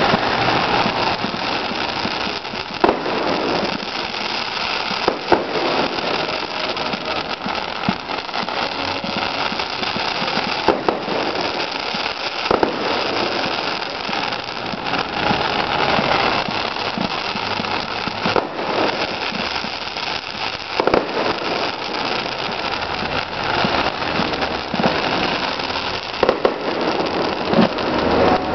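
Aerial fireworks display: a steady dense crackle with sharp bangs every few seconds.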